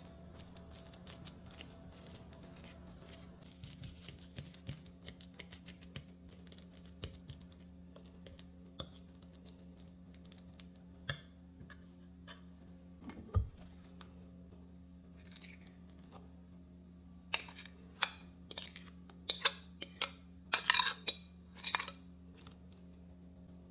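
Kitchen food-preparation handling sounds: scattered light clicks and taps of utensils and ingredients, a single dull thump about halfway through, and a busier run of sharper clicks and knocks near the end, over a steady low hum.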